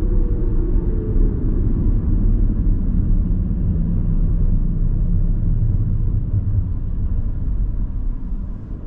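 Car engine and tyre noise heard from inside the cabin while driving, a steady low rumble that gets quieter near the end.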